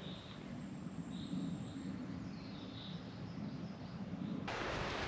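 Quiet forest ambience with a few faint, high bird chirps. About four and a half seconds in it switches abruptly to a louder, even rush of wind-like noise.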